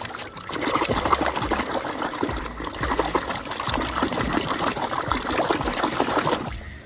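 Water running and splashing as toys are washed, starting about half a second in and stopping shortly before the end.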